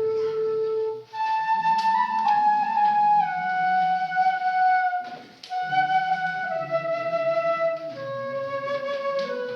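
Bansuri (Indian bamboo flute) playing a slow hymn melody in long held notes, with short breath breaks about a second in and again past the middle.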